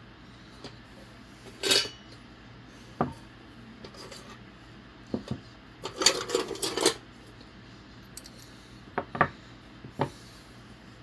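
Old metal hand tools clinking and clattering as they are handled and set down: a few separate sharp knocks, with a longer run of rattling clinks about six to seven seconds in.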